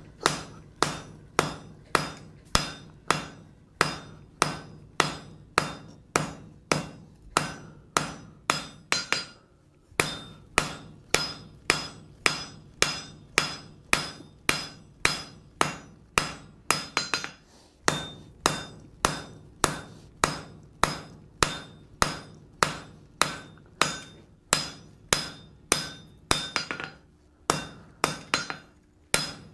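Blacksmith's hand hammer striking a red-hot steel bar on an anvil, steady blows about two a second with a few short pauses, a faint ring after each blow: drawing out an asymmetrical taper at forging heat.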